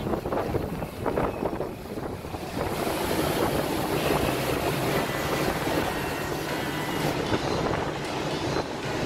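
Wind rushing over the open top deck of a double-decker bus and traffic noise echoing in a road tunnel. The rush turns steadier and fuller about two and a half seconds in.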